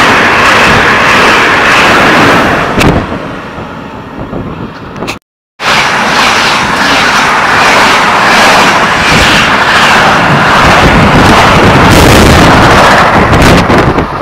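Passenger trains passing close alongside a platform at speed: a loud rush of air and wheel noise that dies away about four seconds in. After a short break a second train rushes past just as loudly, easing off near the end.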